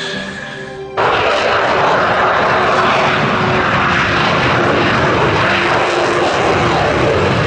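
Loud, steady roar of a military aircraft's engines, starting abruptly about a second in after a moment of music.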